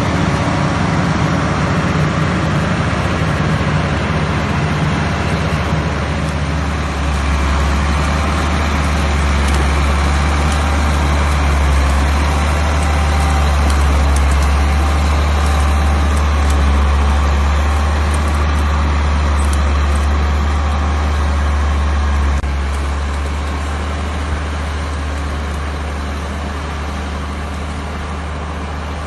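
Heavy machine engine running with a steady low rumble; it eases a little about three-quarters of the way through.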